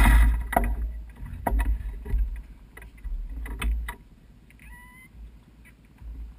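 A motorcycle engine running at the very start cuts off abruptly. Then come scattered knocks and clunks, about five over the next four seconds, with short low rumbles, and a brief squeak about five seconds in.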